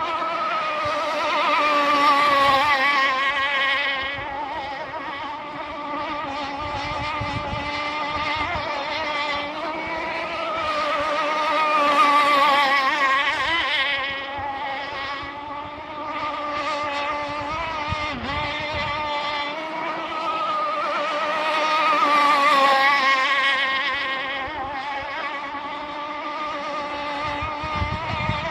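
Radio-controlled speedboat's motor running flat out in a steady, wavering buzz, swelling louder three times as the boat passes close on its laps.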